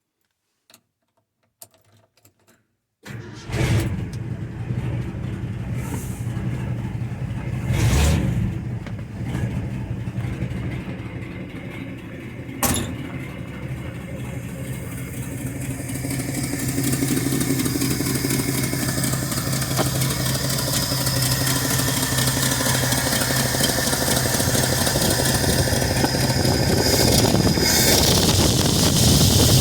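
A few small clicks, then the 1968 Ford F250's engine fires about three seconds in and runs, with two short revs early on and a gradual rise in level through the second half. It is being started to check that the freshly regasketed carburetor power valve no longer leaks.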